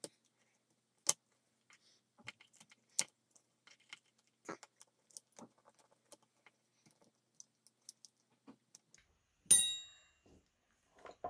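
Small clicks and taps of metal and plastic parts handled while reassembling a Byrna HD air pistol's trigger group, played fast-forward. About nine and a half seconds in comes one loud metallic clink that rings briefly.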